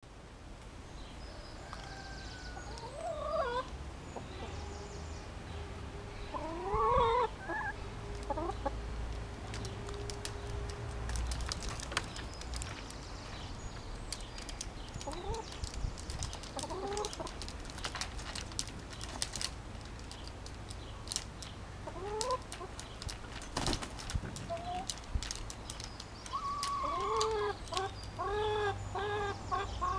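Hens clucking, with short, scattered rising squawks and then a quick run of repeated clucks near the end. Sharp ticks come now and then through the middle, over a steady low rumble.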